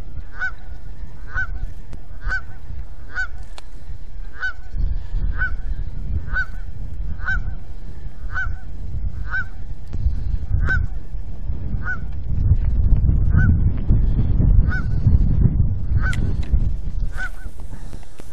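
A goose honking over and over, one short honk about every second, directed at the person on the bank. The caption holds that the bird is not happy at his being there and may be guarding a nest. A low rumbling noise underlies it and grows louder in the last several seconds.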